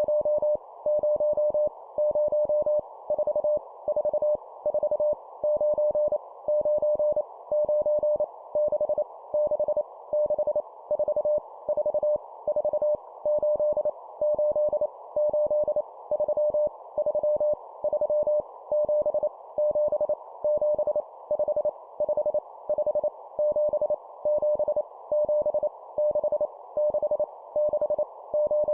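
Morse code (CW) sent at 25 words per minute: a single steady mid-pitched tone keyed on and off in quick dots and dashes, over a faint steady hiss. It is sending random numbers, each repeated three times, as copying practice.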